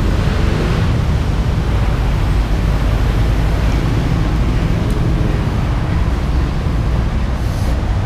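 Steady low rumble with an even hiss over it, holding at the same level throughout, with no distinct strokes or clicks.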